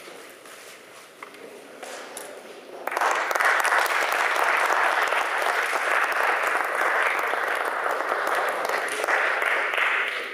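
Audience applauding: the clapping starts suddenly about three seconds in, keeps up steadily and dies away near the end.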